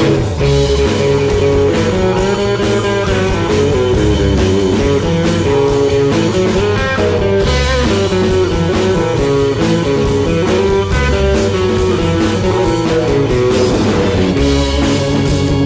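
Psychedelic rock recording by a band: electric guitar playing a melodic line over bass and a steady drum beat, in an instrumental passage.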